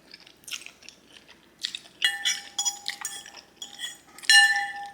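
A metal fork scraping and clinking against a bowl while the last noodles are gathered up, each strike leaving the bowl ringing; the clinks start about two seconds in and the loudest comes near the end.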